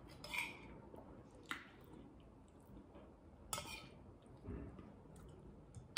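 Metal serving spoon clinking and scraping against a ceramic bowl as sautéed broccoli is scooped out, a few brief, quiet clinks a second or two apart.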